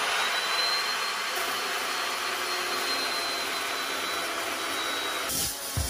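Evolution metal-cutting chop saw running and cutting through a metal plate: a loud, steady grinding whir with a high whine that rises in pitch as the blade spins up, then holds while it cuts.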